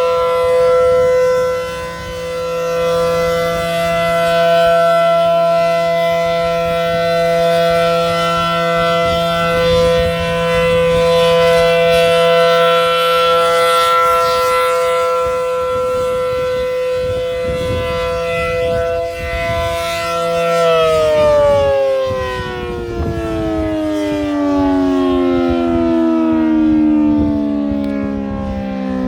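ACA Allertor 125 outdoor warning siren sounding a steady signal of several tones at once, swelling and fading in loudness. About two-thirds of the way through it starts winding down, its pitch falling steadily to the end.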